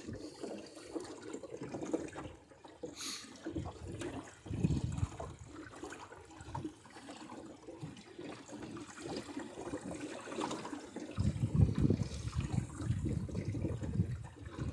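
Water gurgling and sloshing along the hull of a small sailboat under way. In the last few seconds, wind buffets the microphone.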